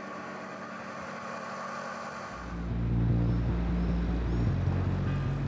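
A quiet steady machine hum, then about two seconds in a louder low rumbling drone whose pitch shifts once near the end.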